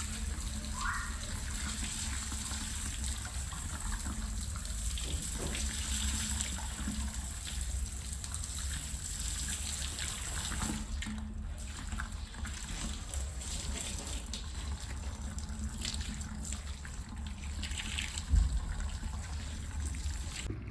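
Water running and splashing steadily during a rug wash, with one dull thump about eighteen seconds in.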